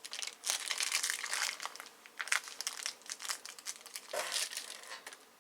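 Packaging crinkling in irregular bursts as a boxed cable is handled and unwrapped, dying away near the end.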